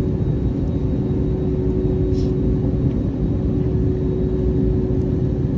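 Jet airliner cabin noise: the engines and rushing air make a steady, even noise inside the cabin, with a constant hum running underneath.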